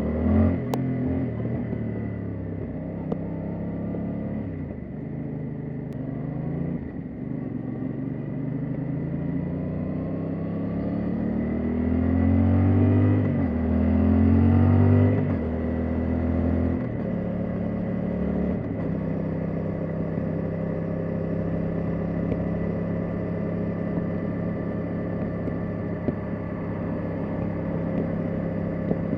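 Yamaha Tracer 700 motorcycle's parallel-twin engine running, its pitch rising and falling several times and loudest about halfway through. After that it settles to a steady, even note.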